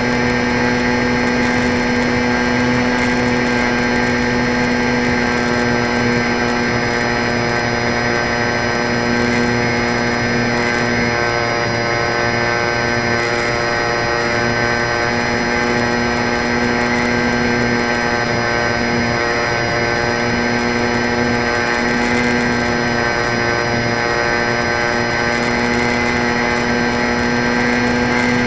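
Electric RC plane's motor and propeller running at a steady throttle, a constant whine heard close up from a camera mounted on the plane, over a steady rush of air.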